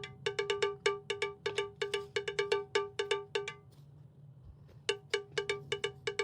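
Background music: a quick run of short, bright, repeated struck notes on one pitch, about five a second, pausing for about a second past the middle.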